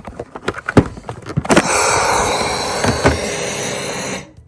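CPAP machine being handled: two sharp plastic clicks, then a steady hiss for about two and a half seconds that cuts off suddenly.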